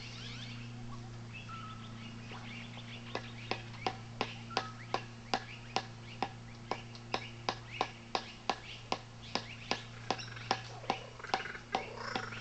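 A tent peg being hammered into the ground with a mallet: sharp, evenly spaced strikes, about two to three a second, starting about three seconds in, over a steady low hum, with birds chirping faintly.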